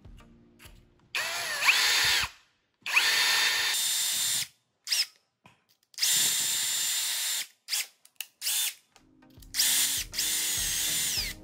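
Cordless drill with a step drill bit running in short bursts: four longer runs and a few brief blips, the motor's whine rising as it spins up and then holding a steady pitch. The bit is reaming out the metal tip socket of a soldering iron handle to widen it so the tip fits.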